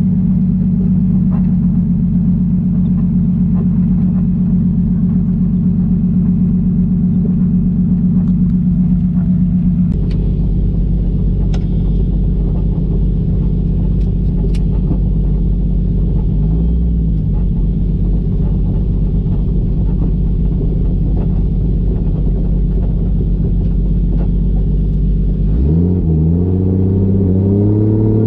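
1JZ straight-six in a swapped Fox-body Mustang, cruising at a steady engine speed; about ten seconds in the note drops lower and deeper. Near the end the engine pulls hard, its pitch climbing quickly as the car accelerates.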